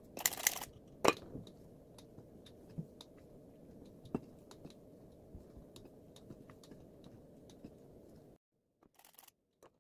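A metal cup flour sifter rasps briefly over the bowl and clinks as it is set down, then a spoon folds flour into whipped egg batter, with light scattered ticks against the glass bowl. The sound drops away shortly before the end.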